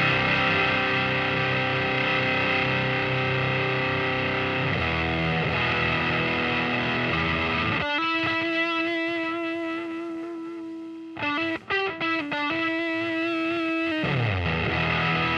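Distorted electric guitar played through a CA-108b compressor/fuzz pedal into a 1970s Fender Super Twin Reverb amp. Held chords give way to a single note that sustains for about three seconds, then a few quick picked notes, another held note, and a downward slide into a chord near the end.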